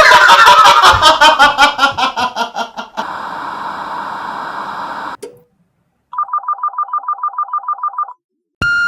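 A loud musical sting of rapid repeated notes fading over about three seconds, then a steady hiss, then a telephone ringing with a fast trill for about two seconds. Near the end a long, steady answering-machine beep sounds, the signal to leave a message.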